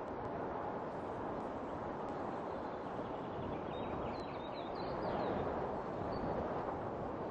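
Wind blowing as a steady rushing hiss that swells slightly about five seconds in, with faint bird chirps about four seconds in.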